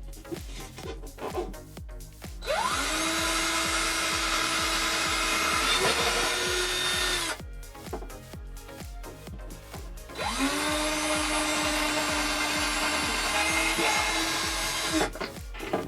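Power drill boring holes into a pantry shelf: two runs of about five seconds each, the motor whine rising as it spins up, then holding steady, with the pitch stepping up just before each run stops.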